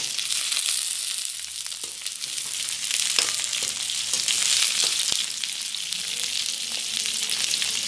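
Chopped onion and garlic sizzling steadily in hot olive oil in a frying pan, with a few light clicks along the way.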